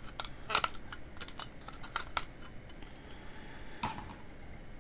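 Irregular clicks and light scraping of a tool prying at hot glue and plastic inside a rechargeable lamp, working its battery loose. A few sharper clicks stand out, about half a second in, around two seconds and near four seconds.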